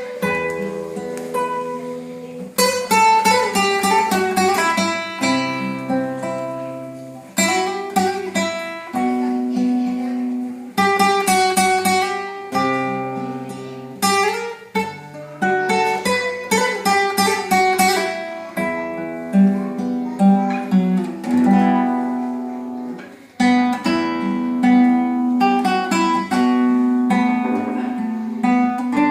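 Matsuoka M50S nylon-string classical guitar played solo: a melody of plucked notes broken by full strummed chords every few seconds, the notes ringing on between attacks.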